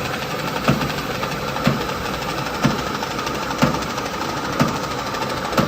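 CNC flanging and punching machine running with a steady hum, struck through by a short, regular knock about once a second as it cycles.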